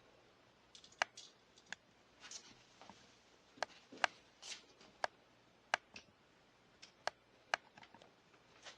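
Irregular small clicks and taps of metal parts being handled, with a few short scrapes, as the safe lock and its mounting screws are set in place and lined up.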